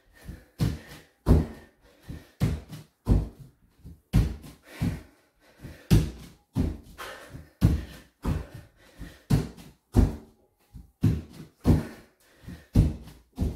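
Bare feet thudding on a wooden floor during fast squat thrusts. The thuds come in rough pairs, about three a second, as the feet jump in under the body and kick back out to a plank.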